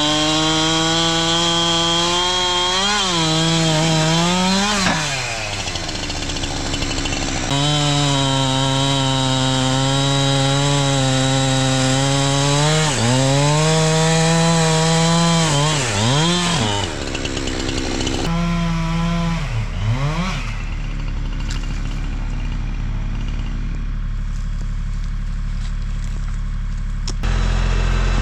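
Chainsaw running at high revs while cutting a log, its engine note dipping and picking back up several times as it bogs in the cut. It stops about 20 seconds in, leaving a low hum, and a deeper engine starts near the end.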